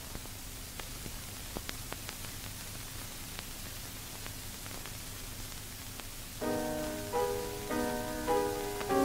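Old film soundtrack hiss and crackle, with a few faint clicks and a low hum. About six and a half seconds in, background music comes in: a melody of short held notes over a chord.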